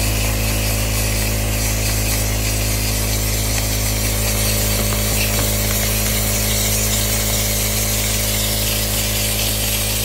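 Power-driven dryer vent cleaning tool running steadily, spinning a flexible line through the dryer vent duct, with a constant machine hum.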